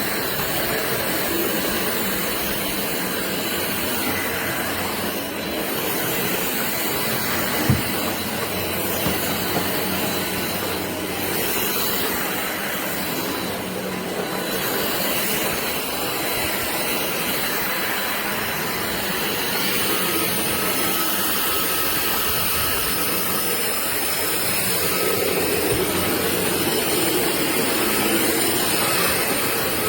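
Cordless stick vacuum running steadily, an even rushing hiss of motor and suction, with a single click about eight seconds in.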